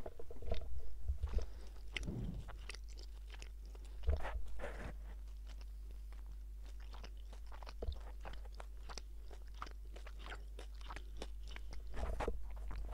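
Candy being chewed right at a microphone: a long run of quick, crisp crunches, louder in a few clusters, over a steady low hum.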